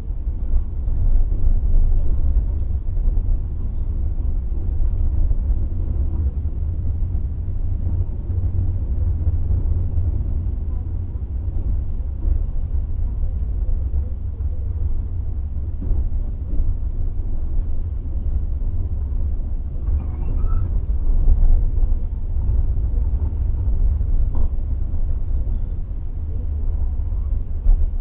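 Steady low rumble of a moving passenger train.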